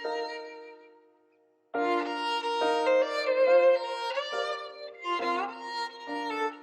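Solo violin playing a slow melody of held notes, often two at a time, with slides between some of them; it breaks off briefly about a second in, then carries on.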